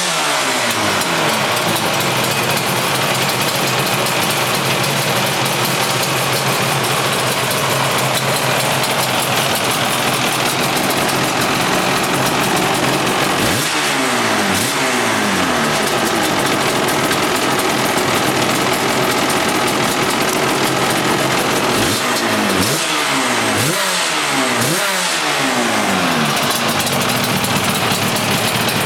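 Yamaha RD500 track bike's two-stroke V4 engine running on the stand, idling with a rasp. It is blipped once about halfway, then three quick times near the end, each rev rising sharply and dropping back to idle.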